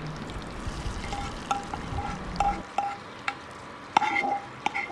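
Tadka of hot oil with mustard seeds, curry leaves and dried red chillies poured into a steel pot of dal, sizzling faintly, with a run of light metallic clinks from the pan and spoon against the pot.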